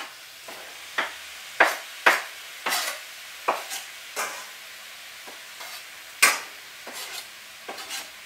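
Raw chicken pieces frying in a pan with a steady sizzle, while a utensil stirs them, scraping and knocking against the pan about a dozen times at an uneven pace.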